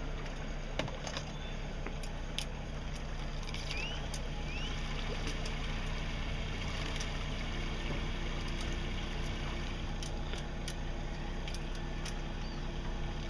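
Boat engine running steadily under way, a low even hum over the rush of water along the hull, with a few light knocks. Two short rising chirps about four seconds in.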